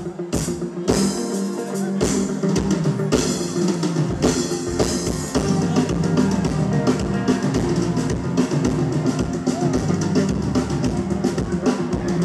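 Live band playing an upbeat dance groove led by drum kit and electric bass guitar, with steady kick and snare strokes; the bass and kick come in fuller about two seconds in.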